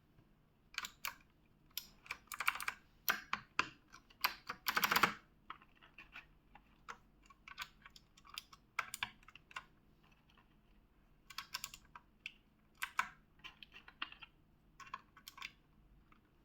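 Typing on a keyboard fitted with ARDOR GAMING keycaps: irregular bursts of key clacks with short pauses, including a fast run of keystrokes about five seconds in.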